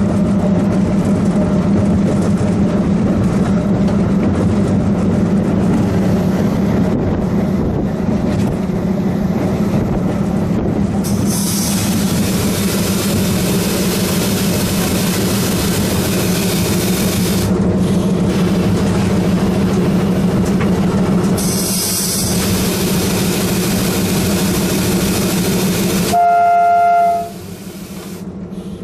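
WDM2A diesel-electric locomotive heard from inside its cab: the ALCO 251 V16 diesel engine drones steadily under the noise of the train on the rails, with a high hiss coming in twice for several seconds. Near the end the locomotive's air horn sounds one blast of about a second, the loudest sound here, and the engine noise drops away right after.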